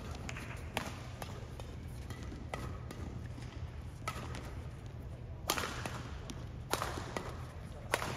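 Sharp cracks in a large hall, about six of them at uneven gaps of one to one and a half seconds, the loudest about five and a half and seven seconds in, over a steady low hum.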